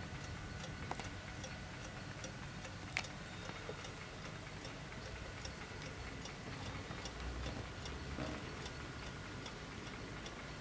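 Faint, steady ticking of a 1960s Mauthe ceramic kitchen wall clock's 8-day mechanical movement, with one louder click about three seconds in.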